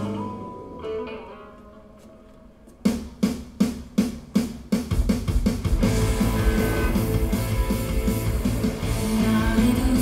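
Film score music. A held chord fades away, then about three seconds in a run of sharp plucked strikes starts, about three a second, and about five seconds in the fuller music comes in with heavy deep bass.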